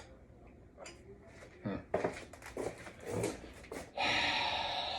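A few clicks and knocks of handling, then a drill fitted with an extension bit starts about four seconds in and runs steadily for about a second and a half, driving a mounting screw.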